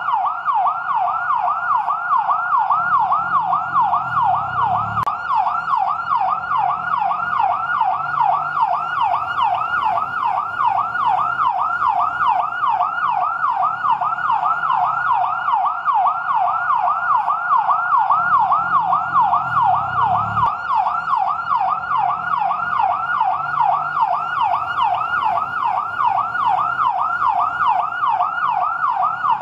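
Fire truck siren on its yelp setting: a fast rising-and-falling wail that sweeps up and down about three times a second, over a faint low rumble.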